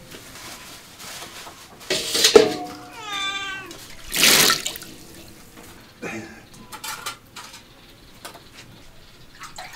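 A domestic cat meows, with two calls about two and three seconds in, the second bending in pitch. About four seconds in, water splashes as it is poured from an enamel mug into a metal basin, followed by a few light knocks of enamel ware.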